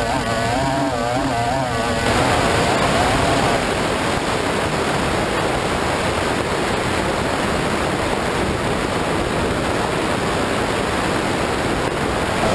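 Racing outboard motor running at speed, its note wavering up and down. About two seconds in the sound changes to a steady rush of wind and water noise on the bow camera that buries the engine.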